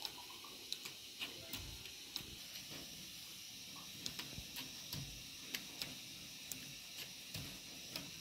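Hand-knotting a pile carpet on an upright loom: irregular light clicks and ticks, about two a second, as the knotting tool and yarn work against the taut warp threads, with a few soft thumps over a steady hiss.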